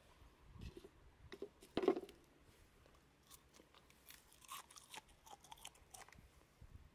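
Crisp taranome (angelica tree shoot) tempura being bitten and chewed: a crunchy bite about two seconds in, the loudest sound, then a run of small crackling crunches as it is chewed.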